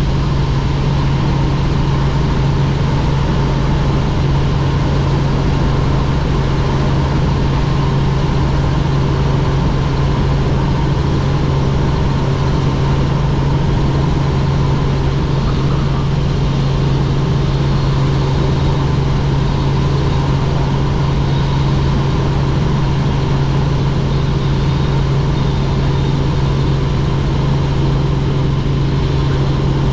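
Helicopter engine and rotor running steadily: a loud, even drone with a strong low hum that does not change.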